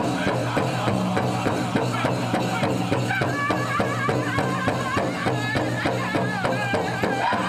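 Pow wow drum group playing a prairie chicken dance song: a big drum struck in a steady, fast beat, with the singers' high voices coming to the fore about three seconds in.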